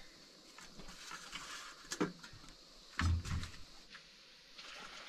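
A few light knocks and clunks of things being handled and set down in a small room, the loudest a dull thump about three seconds in.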